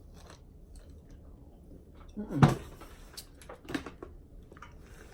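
Quiet eating noises: soft chewing and small clicks and rustles of food and utensils, with one short vocal sound about two and a half seconds in.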